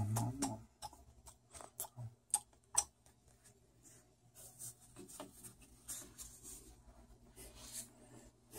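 Close handling sounds: a dull bump at the start, then a run of small sharp clicks over the next three seconds, then soft scratchy rustling.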